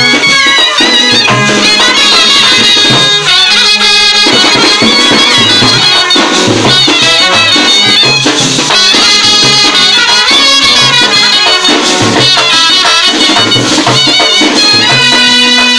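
Brass band playing a lively tune: trumpets and a euphonium carrying the melody over a steady beat of bass drum, snare drum and clashing hand cymbals.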